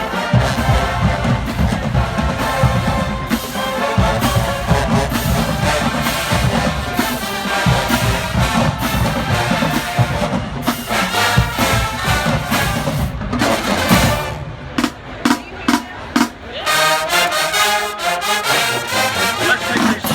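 Marching band playing at full volume: a large brass section over drums. About two-thirds of the way through the band breaks into a few separate short hits, then comes back in fully.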